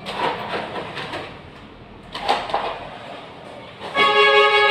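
Old wallpaper being ripped off a wall in two rough tearing bursts, then about four seconds in a loud, steady musical chord comes in and holds.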